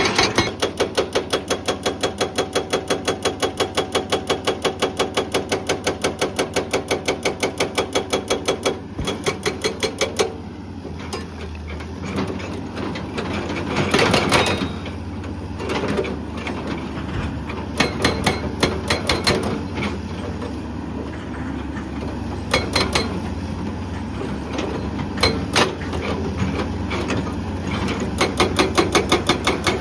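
Hydraulic breaker on a Hyundai excavator hammering rock with rapid, evenly spaced blows, several a second. The blows stop about ten seconds in, leaving the excavator's diesel engine running. Several short runs of blows follow, and steady hammering resumes near the end.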